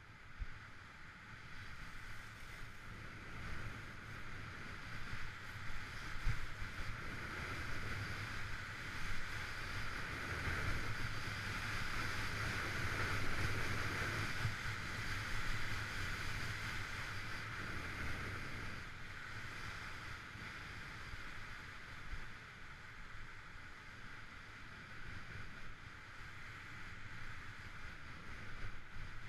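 Skis running down a packed, tracked piste: a steady scraping hiss of the skis on the snow with wind rumbling on the microphone, louder through the middle and easing towards the end.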